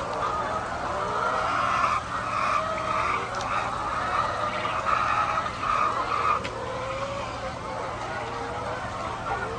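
A flock of farm poultry calling, with many overlapping, wavering cries and a denser stretch of calls in the middle.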